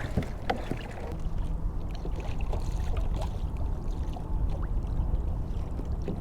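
Kayak on open water: a steady low rumble of wind and water against the hull, with scattered light clicks and knocks of gear being handled.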